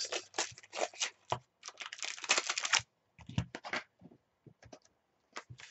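Trading card packs being handled and set down on a tabletop: a run of light clicks and taps, with a crinkly rustle lasting about a second near the middle.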